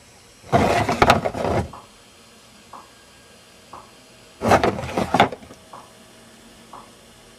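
Paper cards being handled and swapped twice, each time about a second of rustling and light knocks. Faint ticks come about once a second between the swaps.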